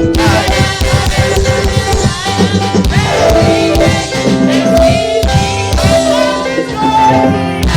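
Live, upbeat gospel music: singing over a band with a steady drum beat, a danceable song played for the congregation to dance to.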